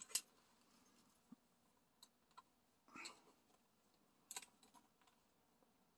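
Near silence with a few faint, scattered clicks and a brief soft rustle about three seconds in: a small metal hanging clip being fitted onto an acrylic diamond-painting plaque.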